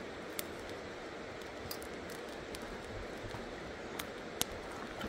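Steady rush of a mountain river's flowing water, with a few sharp clicks or snaps, one about half a second in and two close together about four seconds in.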